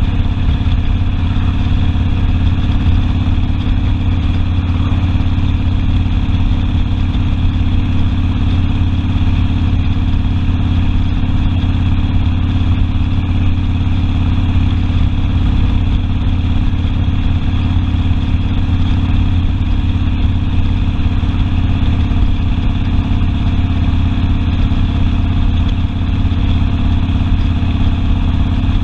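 Harley-Davidson Sportster's V-twin motorcycle engine running steadily, its note holding the same pitch throughout.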